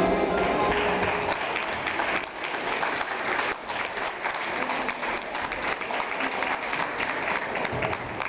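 Audience applauding, the dance music dying away about a second in.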